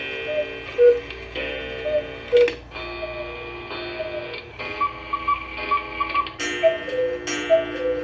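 A comedic musical sound effect: a light tune of short notes over a steady clock-like ticking.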